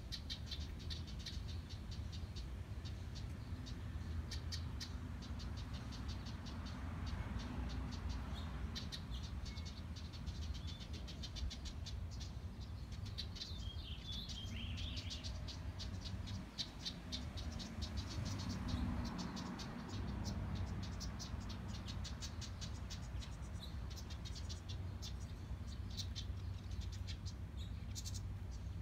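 House wrens giving runs of rapid, dry chattering calls, like a fast ticking rattle, over a steady low background rumble.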